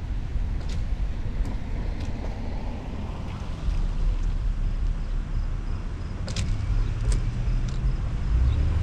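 Car driving slowly on wet pavement, heard from a microphone mounted outside on the car: a steady low rumble of wind buffeting and road noise with tyre hiss on the wet road. A few short sharp ticks come through it.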